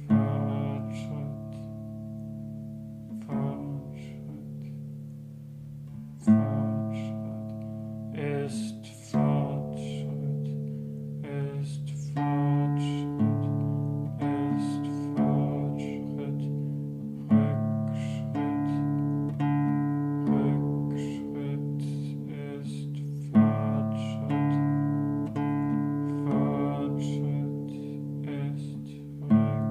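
Classical guitar chords strummed every second or two and left to ring into one another, so the chords blend into a long, sustained sound.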